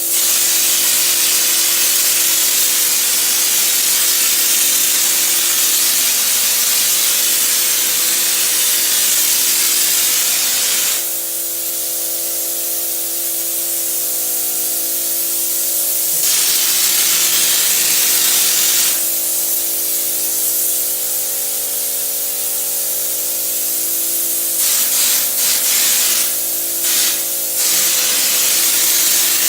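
Popcorn-texture hopper gun spraying: a loud, steady rush of air that eases off about eleven seconds in and again a few seconds later, then comes in short spurts before spraying steadily again. A steady hum runs underneath.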